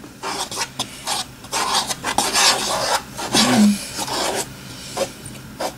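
Slime being mixed in its container: irregular scraping and rubbing strokes as the soupy, lumpy Play-Doh mixture is stirred.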